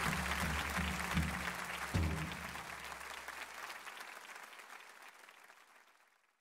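Live concert audience applauding over the band's closing notes, which end with a final hit about two seconds in; the applause then fades out to silence.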